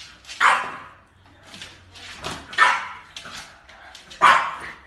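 French bulldog puppy barking three times, short barks about two seconds apart, with fainter sounds between.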